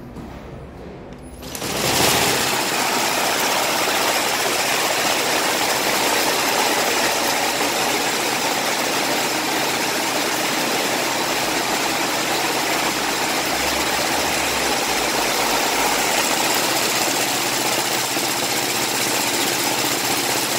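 ARER YHUT-48-1(90) sleeve braiding machine running: after a quieter first two seconds, a loud, steady mechanical noise comes in abruptly as the bobbin carriers circle and braid the sleeve, and holds unchanged.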